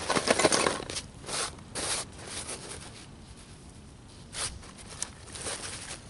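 Dry, shredded tulip poplar inner-bark fibers rustling and crackling in the hands as they are shaped into a tinder bundle, in short bursts that are busiest in the first second.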